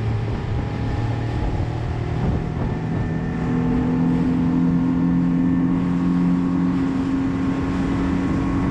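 Boat's outboard motor running steadily with the boat under way, its engine note holding level over rushing wind and water noise.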